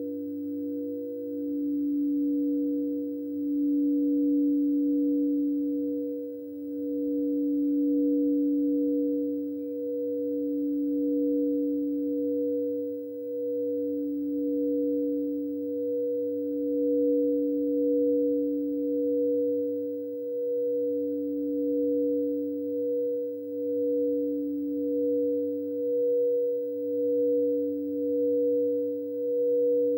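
Two frosted crystal singing bowls played together by circling mallets around their rims, a large bowl holding a low tone and a small bowl a higher one, both sustained with a slow, wavering pulse in loudness.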